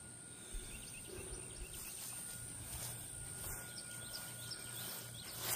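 Outdoor ambience with a series of short, high rising chirps through the middle and a few soft knocks, the sharpest near the end.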